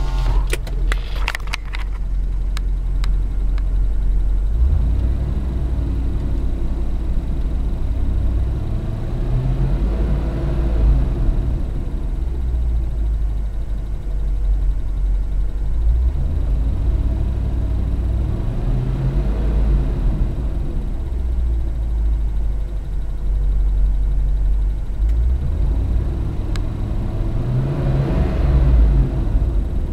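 Land Rover Discovery II engine running with a loud, fast clicking/ticking, like a stopwatch, revved up and back down three times. The owner suspects the upper intake manifold or a switch or valve as the source, and rules out lifter noise.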